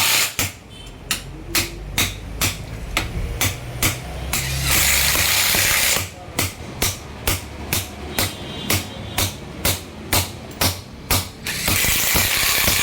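Steel hammer blows driving the second pinion bearing onto the crown-and-pinion differential pinion of an Ashok Leyland truck, a steady run of sharp metallic strikes about two a second. Twice the strikes give way to a spell of loud rushing noise, about a third of the way in and again near the end.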